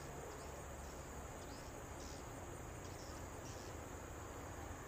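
Steady high-pitched insect buzz, with the low rumble of a diesel locomotive approaching slowly in the distance underneath.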